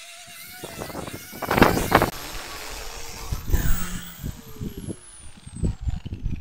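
Angle grinder with a sanding disc working the end grain of a log round, with a loud noisy burst about a second and a half in. In the second half the grinder winds down after being switched off, its whine falling steadily in pitch, amid irregular low knocks.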